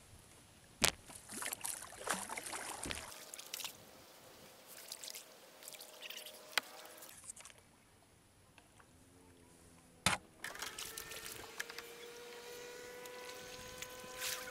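Kayak paddle working the water: splashing and dripping as the boat is maneuvered, with a sharp knock about a second in and another about ten seconds in. A steady hum at several pitches sets in for the last few seconds.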